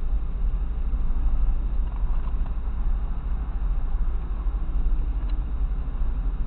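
Steady low rumble of a car driving along the road: engine and tyre noise.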